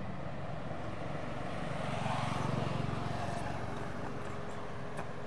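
A motor vehicle's engine passing close by, swelling to its loudest about two to three seconds in and then fading away.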